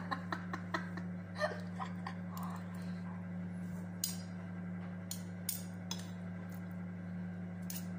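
Eating at a table: a spoon and fork clicking and scraping against a plate, with chewing, in scattered short clicks over a steady low hum.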